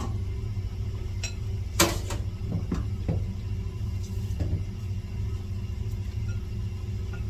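A few knocks of pots and utensils in a kitchen, one sharp knock about two seconds in and softer ones just after, over a steady low hum.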